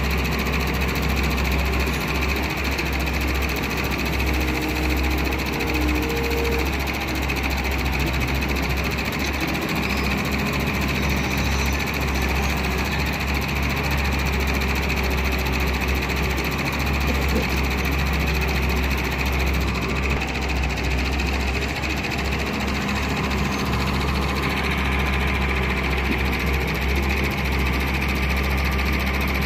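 Doosan wheeled excavator's diesel engine running steadily as the machine works, a constant low drone.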